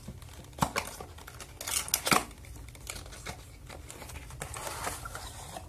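A fitness band's cardboard box sleeve and clear plastic tray scraping and rustling as they are slid apart by hand, with a few sharp clicks and scrapes, the loudest about two seconds in.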